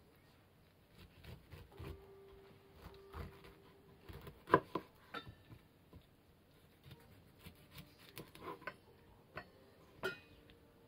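Kitchen knife cutting fresh pineapple on a plastic cutting board: scattered clicks and taps of the blade through the fruit and onto the board, the loudest about four and a half seconds in.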